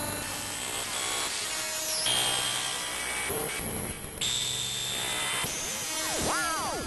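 Layered synthesized sci-fi interface sound effects: a whirring, drill-like electronic noise with steady high tones that switch on and off every second or so, a falling sweep about two seconds in, and a cluster of quick rising-and-falling electronic chirps near the end.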